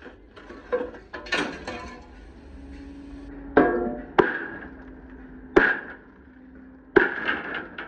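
A hammer striking steel about six times at an uneven pace, each blow ringing on briefly before it fades.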